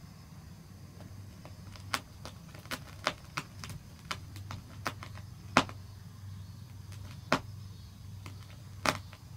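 Scattered sharp clicks and taps at irregular intervals, the loudest about halfway through, over a steady low hum.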